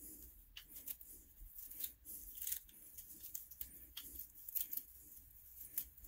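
Faint scratchy rustling and irregular small ticks of tangled hair being picked and pulled off an iRobot Roomba 675's bristle brush by hand.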